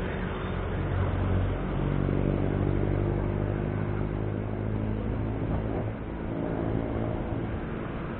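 Road traffic heard from a bicycle on a city road: nearby motor vehicle engines running, with a steady engine hum loudest through the first half and easing off about six seconds in, over a constant rushing noise.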